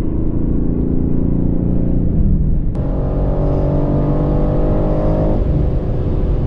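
BMW M3 Competition's twin-turbo straight-six under hard acceleration, heard from inside the cabin. The engine note changes abruptly about two and a half seconds in and again about five seconds in, as the car picks up speed.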